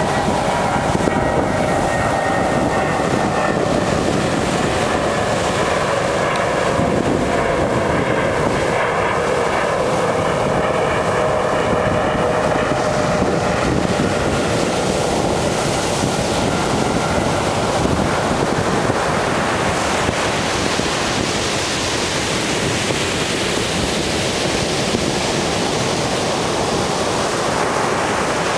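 Ocean surf: a steady wash of breaking waves. Over the first two-thirds, a faint hum of several tones slowly falls in pitch and fades out.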